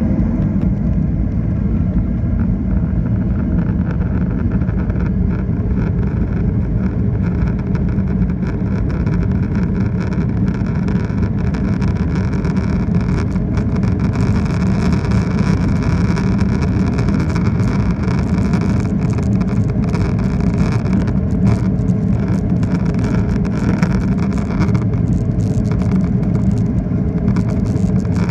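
Jet engines of a Boeing 737 at takeoff thrust, heard from inside the cabin during the takeoff roll: a loud, steady engine noise with a whine over it, the whine growing brighter about halfway as the aircraft speeds up, and wheel rumble and small bumps from the runway.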